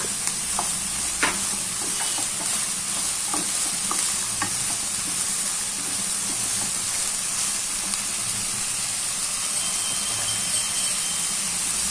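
Chopped carrots, onions and green beans sizzling in oil in a pan as they sauté, stirred with a wooden spatula, with a few light scrapes and taps of the spatula on the pan.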